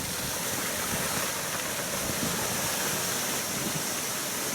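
Stream water flowing: a steady rushing noise.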